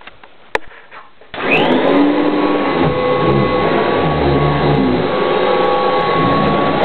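Kirby Heritage II Legend upright vacuum cleaner switched on just over a second in, its motor spinning up with a short rising whine and then running steadily at full speed. A single click comes about half a second before it starts.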